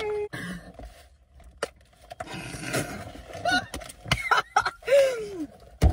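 Short wordless vocal sounds: breathy hissing exhales and a falling "ooh" near the end, typical of someone reacting to burning spicy food, with a few clicks of handling.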